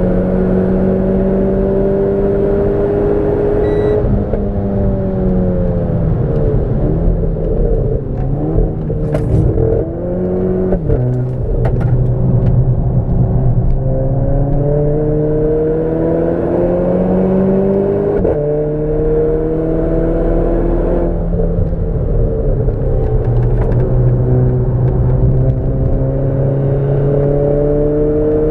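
Renault Clio 4 RS's turbocharged 1.6-litre four-cylinder engine at track speed, its revs repeatedly rising under acceleration and falling with braking and gear changes. There are a few short clicks near the middle.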